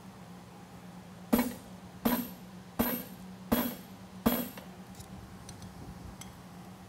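A hammer strikes a handled punch five times, about three-quarters of a second apart, driving it through a red-hot steel tong jaw on the anvil to punch the rivet eye. Each blow gives a short metallic ring. A steady low hum runs underneath.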